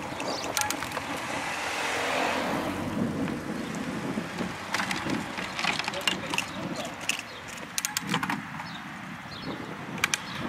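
Noise of riding a bicycle: wind on the microphone over a steady road rumble, with repeated sharp clicks and rattles that cluster around the middle and again near the end.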